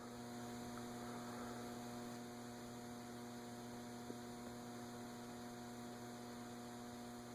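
Faint, steady electrical mains hum, a low buzz with evenly spaced overtones that does not change.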